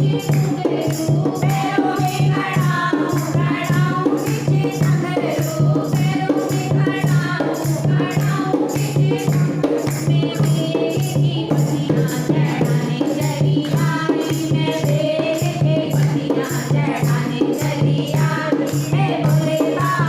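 Hindu devotional bhajan sung by voices in melody over a steady beat, with rhythmic jingling hand percussion throughout.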